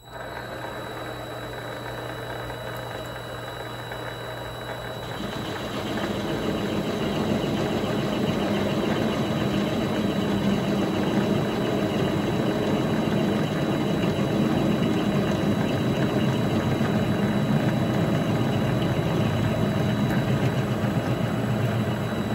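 Vevor MX400 mini lathe starting up and running steadily with its chuck spinning. About five seconds in the sound grows louder and rougher as the cutting tool bites into the end of the workpiece.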